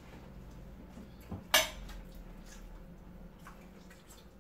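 Hands picking food from a serving platter during a meal, with a faint knock and then one sharp clatter about a second and a half in.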